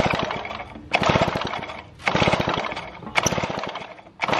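1950s David Bradley chainsaw's two-stroke engine pulled over with its recoil starter four times, about once a second. Each pull is a rapid clatter as the engine turns over without firing, because the magneto is giving no spark.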